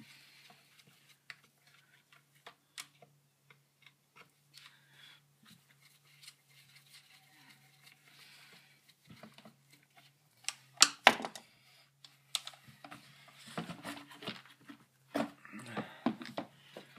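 Small clicks and taps of hand tools and plastic parts as a Poulan 1800 Woodshark chainsaw is taken apart, with two sharp knocks past the middle and a busier stretch of clatter near the end.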